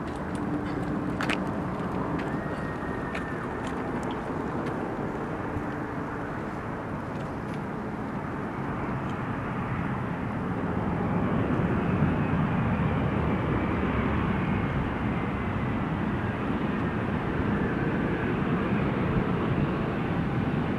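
Airliner engines heard passing, a steady rumble that swells to its loudest about halfway through and then eases, with a faint falling whine.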